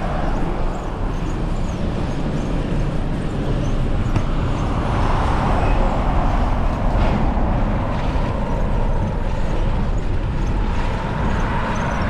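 Wind buffeting the microphone of a moving bicycle, with road traffic going by; a vehicle's noise swells and fades through the middle.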